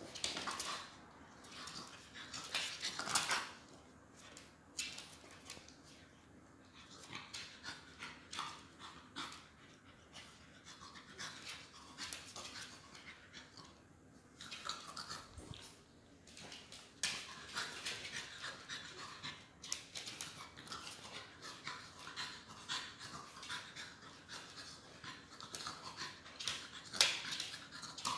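French bulldog puppy gnawing and nosing a whole watermelon: its breathing mixed with repeated short scrapes and clicks of teeth on the hard rind and claws on the wooden floor, louder about three seconds in and near the end.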